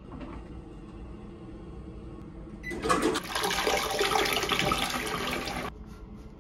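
TOTO toilet flushing: water rushes and swirls through the bowl for about three seconds, then stops abruptly.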